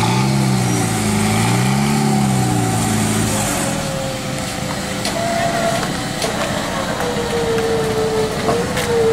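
Off-road buggy's engine revving up and falling back twice in the first few seconds, then a steadier, higher whine that slowly sinks in pitch as the vehicle works.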